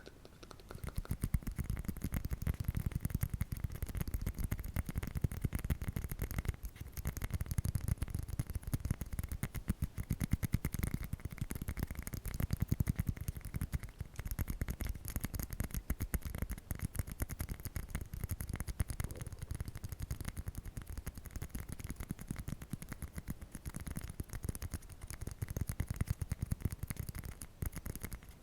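Fast, continuous tapping on an object held close to the microphone: a dense run of small clicks that picks up about a second in and keeps on without a break.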